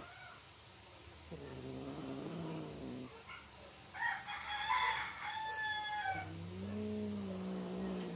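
Cats yowling during courtship: a low, drawn-out wavering yowl, then a much higher drawn-out call about four seconds in, then another long low yowl near the end.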